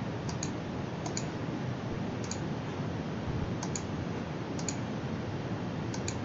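Computer mouse clicks, about six quick double-clicks or press-and-release pairs at uneven intervals, over a steady background hiss.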